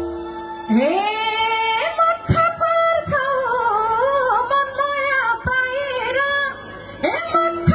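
A woman singing a Nepali dohori folk melody live into a microphone: she slides up into a long held note, then carries a wavering, ornamented line over a sparse accompaniment, and the full band comes back in near the end.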